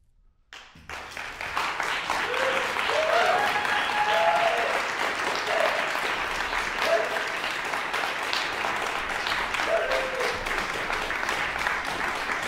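Audience applause breaking out suddenly about half a second in after a moment of silence and then clapping steadily, with a few voices calling out over it.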